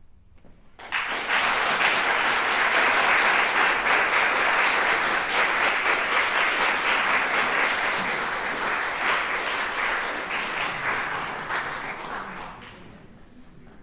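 Audience applauding. The clapping breaks out about a second in, holds steady, then tapers off near the end.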